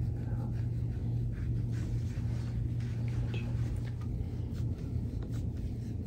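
Faint rubbing of hands kneading oiled skin during a massage, over a steady low hum.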